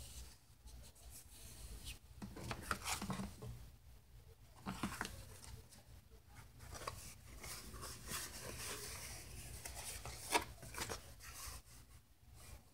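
Sheets of stiff eco-printed paper rustling as hands lift, turn and shuffle them, in irregular soft rustles and small clicks, the loudest about ten seconds in.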